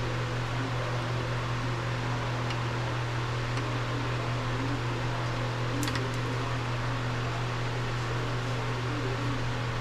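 Steady machine hum with a low drone, like a running fan, unchanging throughout, with a couple of faint light clicks about six seconds in.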